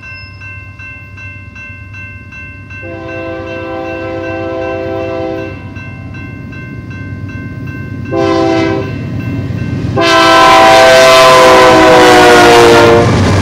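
BNSF freight locomotive's air horn sounding for the grade crossing: a long blast, a short blast, then a long, loudest blast whose pitch sags slightly as the locomotive reaches the crossing. The crossing-signal bell rings steadily underneath, and the rumble of the passing locomotive rises near the end.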